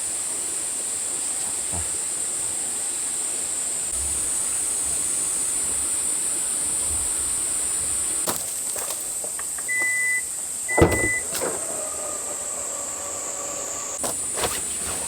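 Insects in a summer forest keep up a steady high-pitched drone. A few knocks sound over it, the loudest about two-thirds of the way through, and two short high beeps come just before it.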